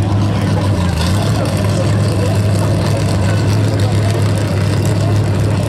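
Front-engine altered drag car's engine idling steadily: a deep, even low tone with no revving.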